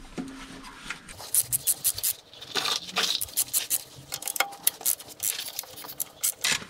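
Ratchet with a 13 mm socket clicking in short irregular runs as the bolts of an automatic transmission's oil pan are loosened.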